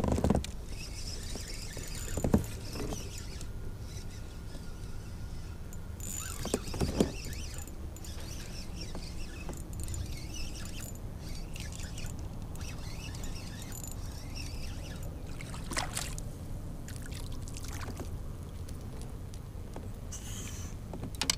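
Spinning reel being cranked as a crankbait is retrieved, with a few sharp knocks against the kayak and a steady low rumble underneath.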